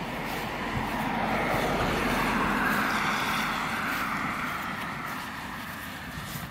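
A car passing on a wet street, its tyre noise swelling to its loudest about two to three seconds in, then fading as it drives away.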